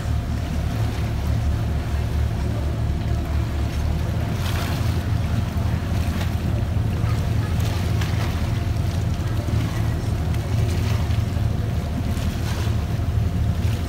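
A boat's engine running with a steady low hum while the boat moves along. Water wash and gusts of wind on the microphone swell over it several times.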